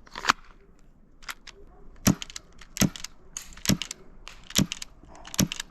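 Tokyo Marui Mk23 airsoft pistol with its suppressor fired on green gas, a series of about six short, sharp shots roughly a second apart, with fainter ticks between some of them.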